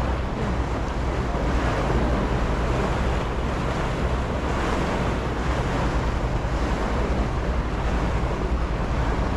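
Passenger ferry under way: wind buffeting the microphone and water rushing past the hull over a steady low engine drone.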